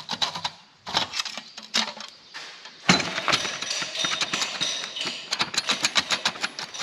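The worn old clutch from a Mitsubishi L200, handled off the truck: a few loose metallic clinks, then from about three seconds in a fast, continuous metal-on-metal rattle. This is the noise the broken clutch makes.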